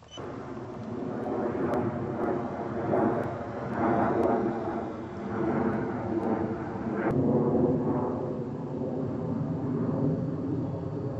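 Electric motor and propeller of a Multiplex EasyStar RC plane running under power in flight. The sound starts abruptly and swells and fades several times as the plane flies past and away along the field.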